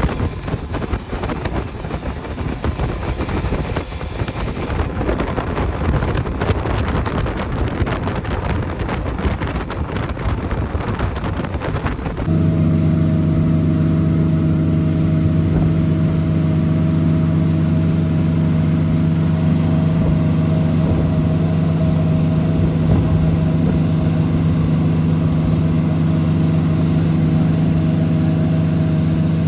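Motorboat engine running at a steady speed. For the first dozen seconds it is half-buried in rough wind and water noise; then the sound changes abruptly to the engine's steady drone.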